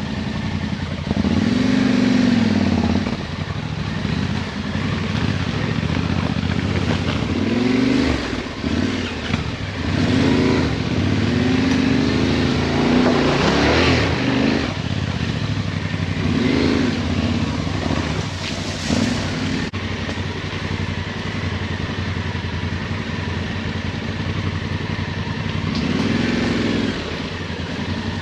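Yamaha Ténéré 700's parallel-twin engine riding slowly off-road, with repeated throttle openings that rise in pitch and fall back: about two seconds in, several through the middle, and again near the end.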